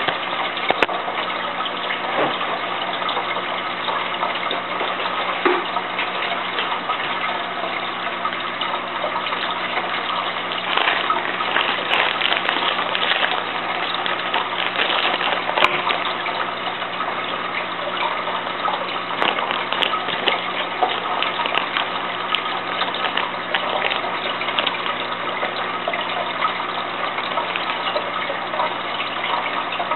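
Aquarium water splashing and gushing steadily, full of small crackles, with a faint steady hum underneath.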